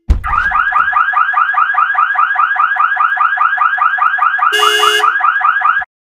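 Electronic car-alarm-style warble, a rising-and-falling chirp repeating about five times a second, that cuts off suddenly near the end. A short horn beep sounds over it about four and a half seconds in, and a thump comes at the very start.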